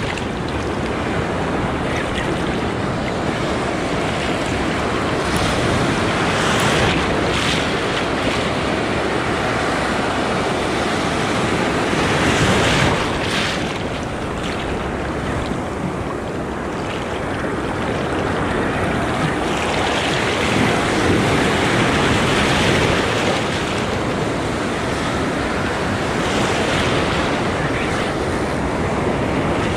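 Ocean surf breaking and washing through the shallows, with wind buffeting the microphone; the rush of water swells louder several times as waves come in.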